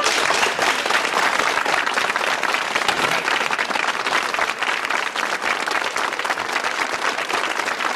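Studio audience applauding: many hands clapping steadily at an even level.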